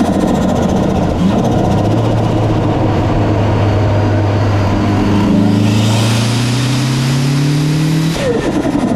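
Mitsubishi Lancer Evolution IV's turbocharged 2.0-litre four-cylinder idling, briefly blipped about a second in. It is then revved up over a few seconds as the turbo spools with a rising hiss. Near the end the throttle snaps shut and the revs drop with a rapid fluttering chatter, turbo flutter from compressor surge.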